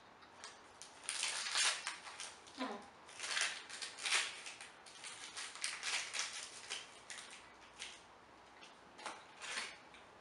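Plastic snack-bar wrapper crinkling and rustling in bursts as it is handled and folded around the bar.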